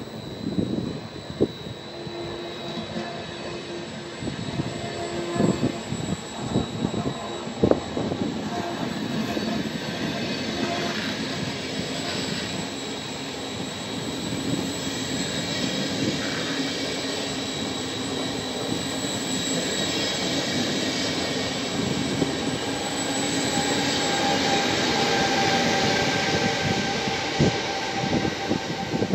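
Regional train of Vivalto double-deck coaches pulling out of the station, pushed by an E464 electric locomotive at the rear. Wheels click over the rail joints early on, and the running noise with its steady whine grows louder as the locomotive comes past near the end.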